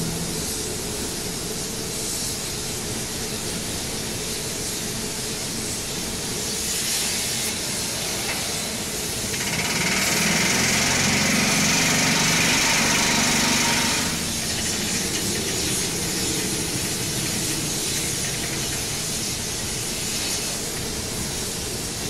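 Steady hissing noise of a working blast furnace being tapped, with molten iron running and sparks flying at the taphole. It grows louder from about ten seconds in for some four seconds, then settles back.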